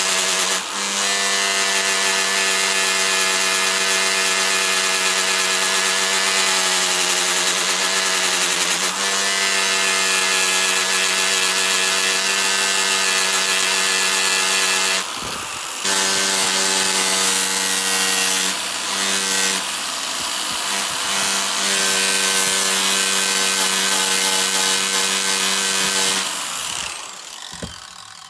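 A power tool running steadily and loudly, a constant whine over a harsh rasping noise, as it works on rusty metal. It cuts out for about a second around the middle, then starts again, and winds down near the end.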